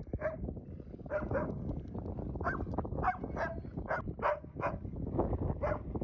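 A dog barking and yipping in rough play: about ten short, pitched barks in quick irregular succession. Wind rumbles on the microphone throughout.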